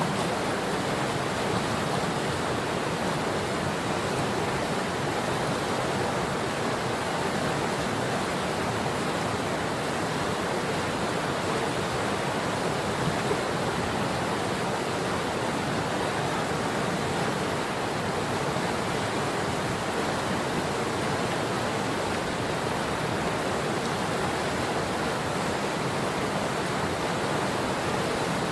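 Patapsco River water rushing in a steady, even hiss that doesn't change.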